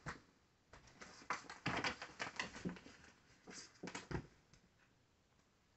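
Kitten scrambling on a fabric curtain: claws catching and scratching at the cloth and the curtain rustling in an irregular run of scrapes and taps, with a dull thump about four seconds in.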